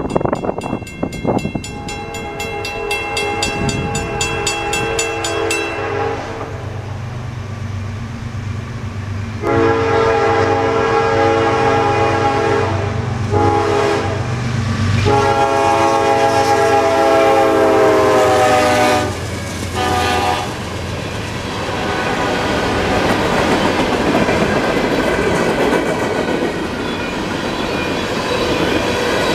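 CSX diesel freight locomotive's air horn sounding a series of long and short blasts at a grade crossing, over the low drone of the diesel engine and with the crossing bell dinging at the start. About 21 seconds in the horn stops and the freight cars roll past with a steady rumble.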